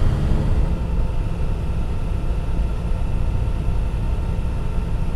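Triumph Tiger 1050 three-cylinder engine running at a steady cruise while riding, heard with wind and road noise on the bike-mounted GoPro's microphone: a steady low rumble.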